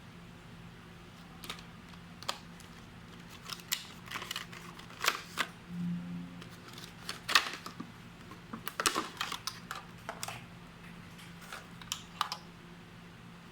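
Irregular sharp clicks and taps from a plastic wireless doorbell unit being handled, about a dozen spread unevenly, the loudest about seven seconds in. No chime sounds.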